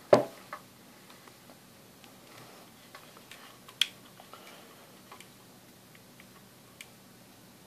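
A loud knock at the start, then scattered small clicks and taps as the speaker's circuit board and plastic casing are handled and turned over.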